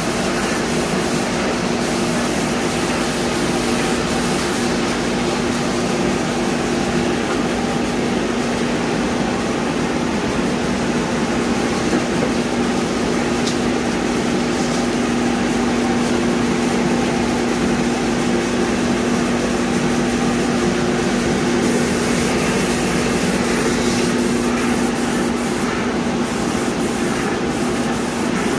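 Steady hiss of a TriTech airless spray gun atomizing cabinet coating, over a constant machine hum.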